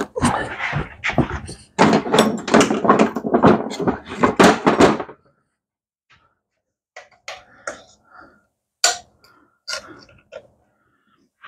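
Clattering and knocking of tools and small parts being handled, dense for about five seconds, then a few scattered clicks and taps.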